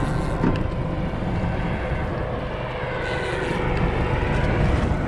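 Boat's outboard motor running steadily, with a steady hum over a noisy, rushing base.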